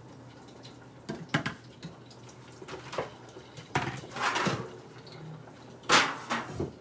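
Intermittent kitchen handling sounds: a few sharp knocks and short bursts of splashing water, the loudest about six seconds in.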